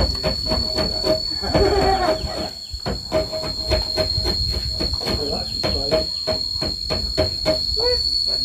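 An insect drones on one high, steady note throughout. Under it runs a string of quick clicks and knocks over a low rumble.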